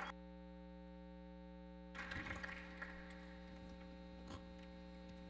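Steady electrical mains hum from the sound system. About two seconds in there is a brief rustle, followed later by a couple of faint clicks.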